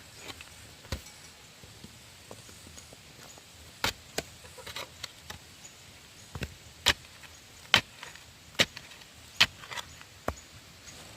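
Repeated sharp strikes of a hand tool on wood: a few scattered knocks at first, then a steady run of hard blows about a second apart.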